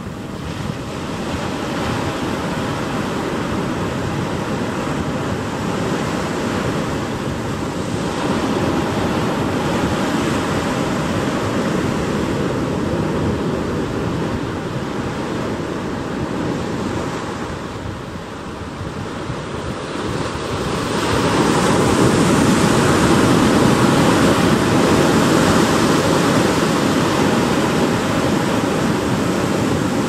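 Ocean surf breaking and washing up a sandy beach, a steady rush that swells louder about eight seconds in and again from about twenty-one seconds in as bigger waves come ashore.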